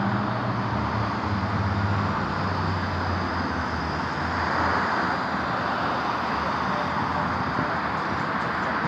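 Steady road traffic noise from cars driving past on a busy multi-lane road, with a low engine hum over the first few seconds.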